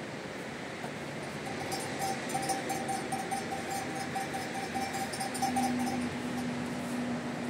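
Steady hiss of rain. For a few seconds in the middle, a rapid pulsing chirp, like an insect's trill, sounds over it. A low steady hum begins near the end.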